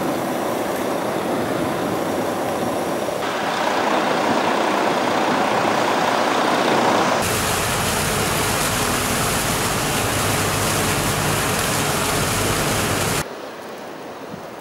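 Steady outdoor background noise that changes abruptly twice in the first half. From about halfway it gives way to an even, loud rush of fountain jets splashing into a pool, which cuts off near the end to a quieter background.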